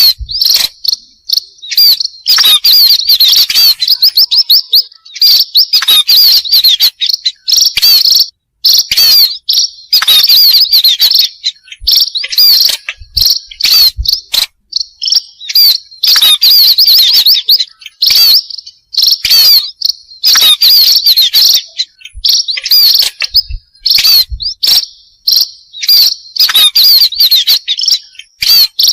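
Lure recording of a flock of pipit birds chirping rapidly together, in dense bouts of a few seconds broken by short pauses, played loud.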